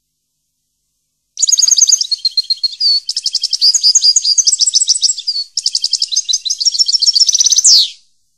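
A small songbird singing a fast, varied song of rapid high chirps and trills, starting about a second and a half in, with a brief break partway and a falling note just before it stops.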